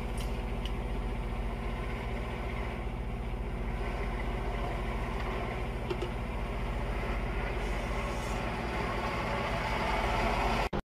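Motorcycle engine running steadily at highway cruising speed, with wind and road noise. It grows a little louder near the end, then cuts off abruptly.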